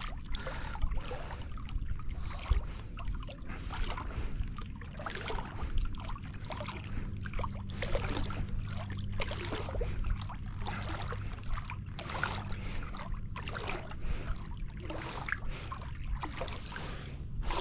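Water sloshing and dripping at a wooden canoe as a cast net is pulled back in by hand, a run of irregular splashy swishes about once a second.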